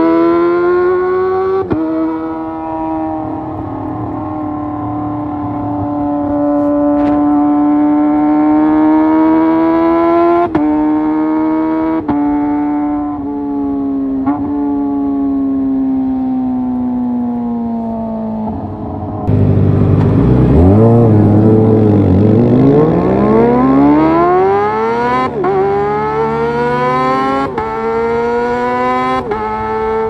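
Kawasaki ZX-25R's inline-four through a Leo Vince GP Corsa Evo short full-system exhaust, heard from the rider's seat, pulling hard through the gears with several quick upshifts, each a brief break before the pitch climbs again. About two-thirds through it turns louder and rougher: the pitch drops, then sweeps back up to a high scream.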